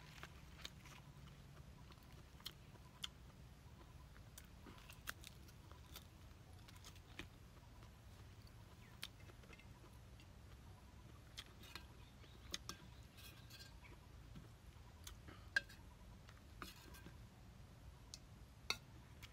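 Quiet eating sounds: a metal spoon clicking and scraping against an enamel bowl in scattered, irregular clicks, two of them sharper, one past the middle and one near the end, over a faint low rumble.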